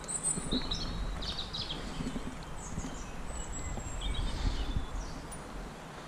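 Small birds chirping in short phrases, over low rustling and soft knocks of movement on the stream bank.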